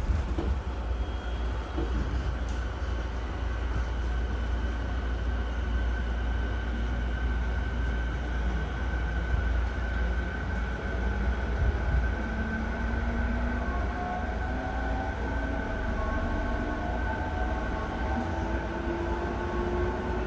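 Running sound inside an E217-series electric multiple unit motor car: a steady low rumble of wheels on the rails, with the traction motors' whine rising slowly in pitch from about the middle on as the train picks up speed.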